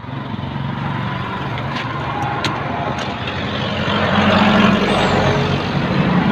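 Corded electric hand drill with a homemade cutting bit running, grinding into the seized rear-axle bearing cup inside the axle housing; the grinding grows louder from about four seconds in.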